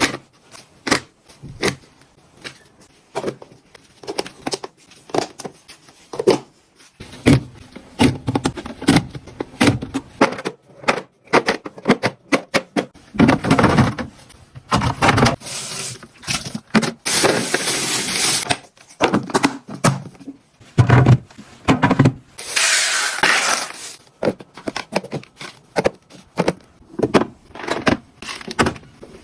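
Hands handling food packages and plastic containers while stocking a refrigerator: a steady run of light clicks and knocks as items are set down and fitted in, with a few longer rustling stretches around the middle and again later.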